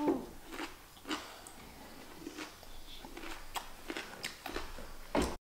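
Close-miked crunching and chewing of a mouthful of raw cucumber: irregular crisp crunches and wet mouth clicks. The sound cuts off suddenly near the end.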